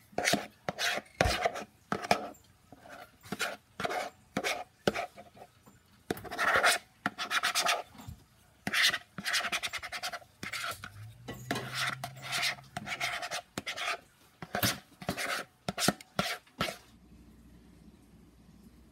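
Repeated scraping strokes of a spatula working thick marshmallow mixture, roughly two a second, stopping shortly before the end.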